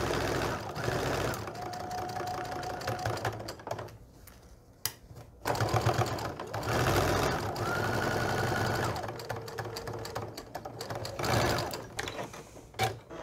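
Electric sewing machine stitching a quilt seam through pieced cotton, running in spurts. It stops briefly about four seconds in, starts again, and slows near the end.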